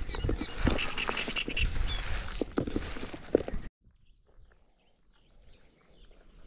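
Short knocks and rustles with birds chirping over them, at the water's edge. About three and a half seconds in the sound cuts off abruptly to a quiet background with faint bird calls.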